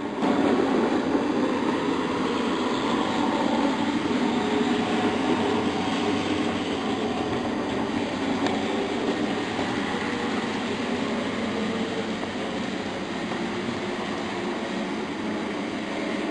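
Model trains running on the layout track: a steady rumble of wheels and motors that comes in suddenly at the start.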